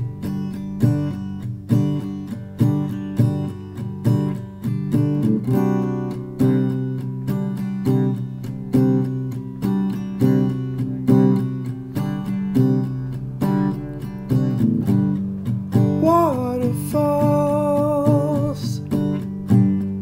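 Small-bodied acoustic guitar strummed in a steady rhythm, a song's opening chords. About sixteen seconds in, a man's voice comes in singing a sliding then held, wavering note.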